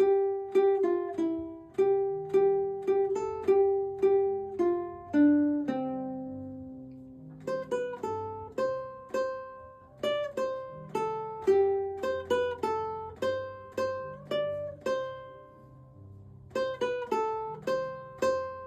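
Background music: an instrumental melody on a plucked string instrument, short notes that start sharply and fade quickly. Twice, about six and sixteen seconds in, the picking stops and one low note rings out and fades.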